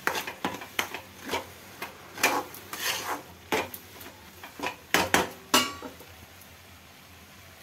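Metal slotted spatula scraping and clanking against a steel kadhai while stirring thick carrot halwa, in quick irregular strokes that stop about six seconds in.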